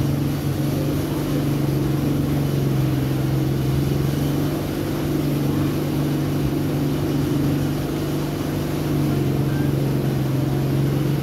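Steady low hum of a running machine, even in level with no change in pitch.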